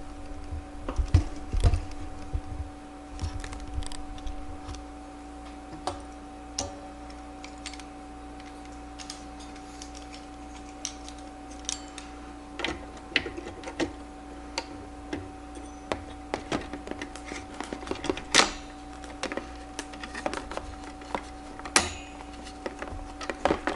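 Scattered plastic clicks, taps and knocks of a CPU cooler being fitted onto a motherboard, its plastic push pins pressed into the board's mounting holes, over a steady background hum.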